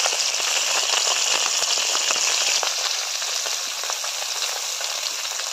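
Whole bata fish frying in hot oil in a wok: a steady sizzle with frequent small crackles of spattering oil, easing a little about halfway through.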